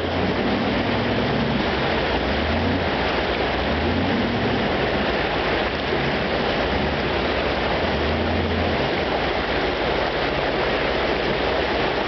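Rushing mountain creek water pouring over boulders, a steady loud rush. Underneath it, a 4x4's engine running low, swelling several times.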